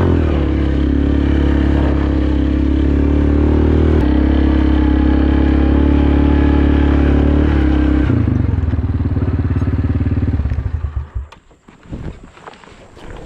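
ATV (four-wheeler) engine running loudly while being ridden, its pitch shifting in steps about four and eight seconds in. The engine stops about eleven seconds in, and a few knocks and clatter follow near the end.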